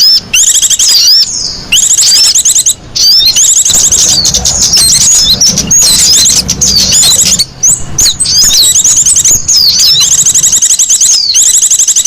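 Small songbird calls played as a bird-trapping lure recording: fast high-pitched trills and curving whistled chirps, repeated in loud, near-continuous phrases with brief gaps.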